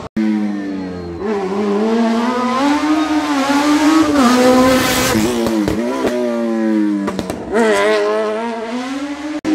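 Rally car engine revving hard, its pitch climbing and dropping back repeatedly through gear changes, loudest about halfway through.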